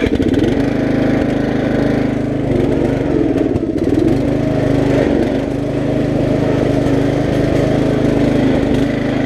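Riding lawn mower engine running steadily and loudly up close, its pitch wavering briefly a few seconds in.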